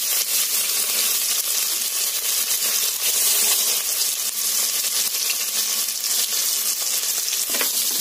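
Sliced onions sizzling steadily in hot coconut oil in an aluminium pressure cooker, with a wooden spatula starting to stir them near the end.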